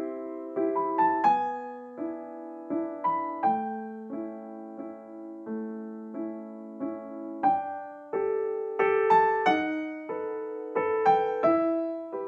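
Slow background piano music: single notes and chords struck one after another, each ringing and fading away.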